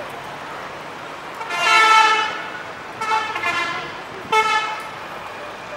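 A vehicle horn honking three times, the first honk the longest and loudest. Road traffic runs underneath.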